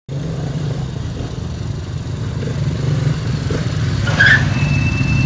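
Quad bike (ATV) engines idling: a steady low hum. A brief higher sound and a short high tone come near the end.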